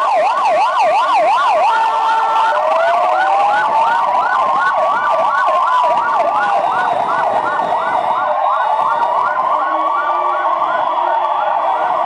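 Several police car sirens sounding at once, loud: a fast up-and-down yelp in the first second or two, then a slow rising and falling wail over a rapid repeating chirp.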